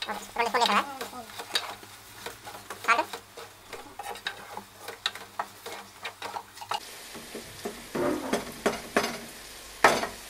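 A spatula stirring a pot of shellfish and vegetables frying in oil, with many quick scrapes and knocks against the metal pot. The food sizzles under the stirring, more steadily in the last few seconds.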